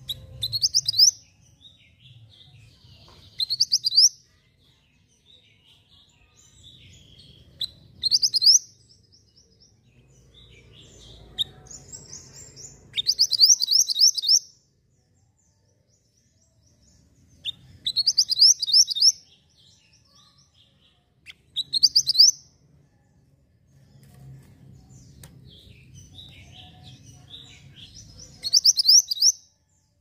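Caged male minivet singing: about seven loud, rapid phrases of sharp, high, downslurred notes, each lasting a second or so, repeated every few seconds. A faint low hum lies under the gaps.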